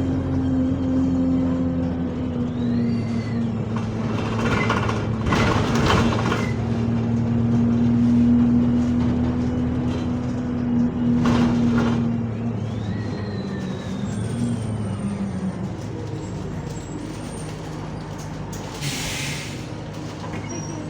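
Bus engine and gearbox running under way, with a steady drone that drops in pitch as the bus slows about two-thirds through. A thin whine glides up early on and then falls away as the bus decelerates. Short hisses of compressed air break in several times, and a stronger air-brake hiss comes near the end.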